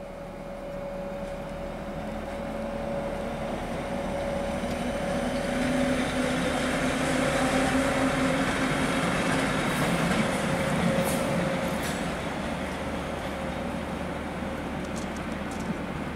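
ÖBB class 1144 electric locomotive passing along the track. It grows louder as it nears, is loudest in the middle with a few brief sharp high sounds, and fades as it moves off.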